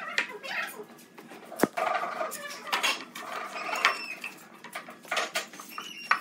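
Steel pipe clamps clinking and scraping against each other and the wood as one is laid across a glued-up pine panel and its clamp jaws are set, with one sharp knock about one and a half seconds in.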